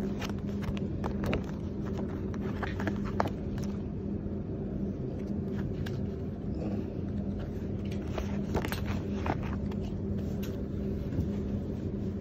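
Steady low hum with a held low tone, with scattered light taps and rustles of paper and fabric sample sheets being handled.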